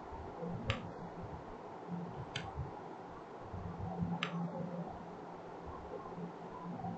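Three sharp computer mouse clicks, spaced about a second and a half apart, over a faint low background rumble.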